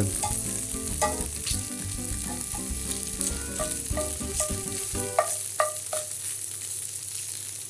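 Tofu cubes sizzling in oil in a hot cast iron pan as they sear, with a steady hiss. Short clicks of metal tongs against the pan come every second or so as the cubes are turned over.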